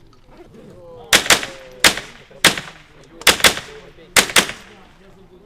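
Rapid .22 rimfire rifle shots, eight of them in about three and a half seconds, several fired as quick pairs, each with a short ringing tail.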